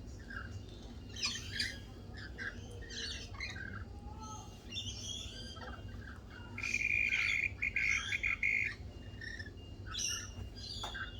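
Several small birds chirping and calling, with short high chirps throughout and a louder rapid, buzzy chattering call for about two seconds past the middle.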